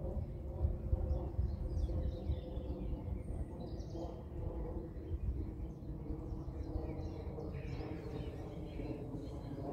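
Distant jet airliner rumbling steadily overhead, unseen above the cloud, easing off slightly as it goes. Small birds chirp briefly now and then over it.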